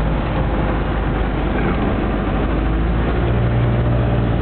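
A car being driven, heard from inside: steady engine rumble and road hiss, with a low hum that grows stronger about three seconds in.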